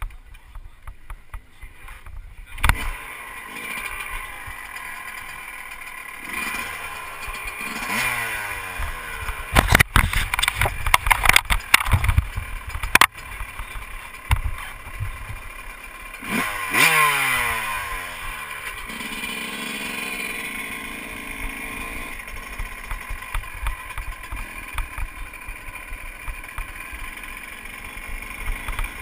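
Motocross bike engine starting, then revved in rising blips, with a run of sharp cracks past the middle, before settling to a steady run.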